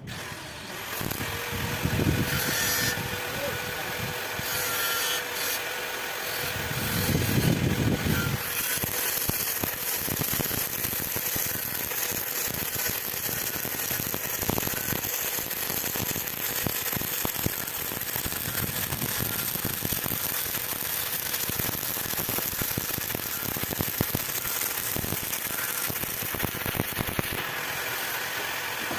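Stick arc welding: the electrode's arc crackling and sputtering steadily and continuously.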